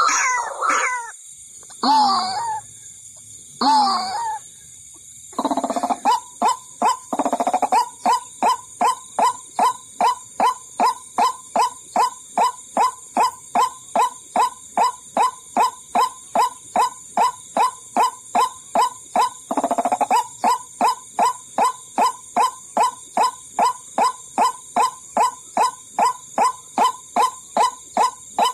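White-breasted waterhen (ruak-ruak) calling as a trapping lure: a few separate harsh calls, then a long, steady run of short repeated notes at about two a second.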